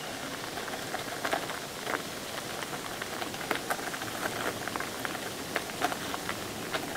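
Bicycle tyres rolling over a rough forest track: a steady crunching hiss with many scattered sharp little clicks and ticks.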